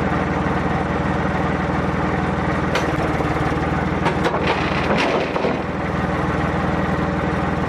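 Case International 485 tractor's three-cylinder Perkins diesel running steadily. A few sharp knocks come through between about three and five and a half seconds in.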